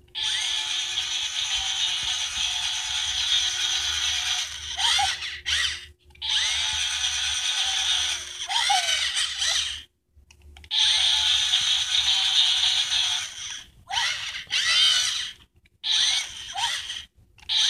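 Small electric motor and plastic gears of a battery-powered toy scooter whirring. It runs in stretches of a few seconds, stopping briefly in between.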